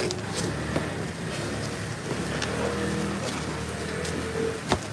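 Market-stall background: a steady low rumble with voices talking in the background, and a single sharp knock near the end.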